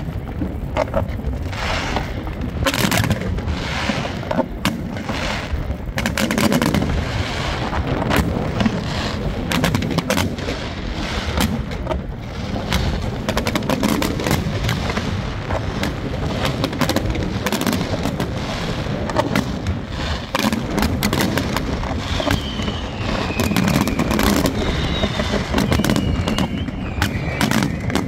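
Fireworks display: a dense, continuous run of aerial shell bangs and crackling bursts, many in quick succession. Late on, a faint high whistling tone slides downward.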